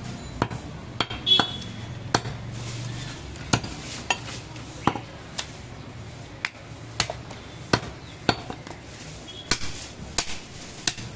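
A large butcher's knife striking a wooden log chopping block while goat meat is cut, giving sharp irregular knocks about one or two a second, some with a short ring.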